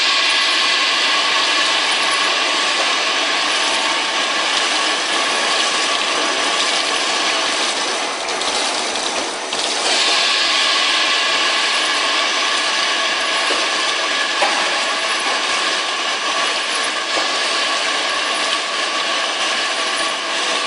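Industrial machinery running steadily: a loud, even whir carrying several steady tones, with a brief change in the sound about nine seconds in.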